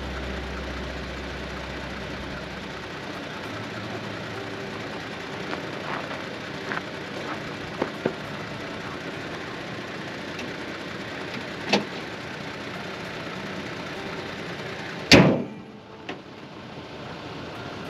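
A pickup truck's hood slammed shut, one loud bang about fifteen seconds in, after a steady mechanical hum with a few light clicks and clanks as tire-inflation gear is handled and put away.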